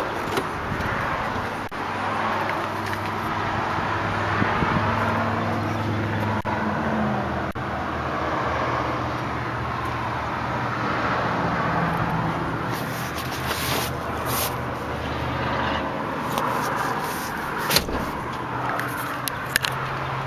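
A door latch clicks as a pickup truck's rear door is pulled open, over a steady motor-vehicle hum that shifts in pitch twice. A few more clicks and knocks come from handling the door.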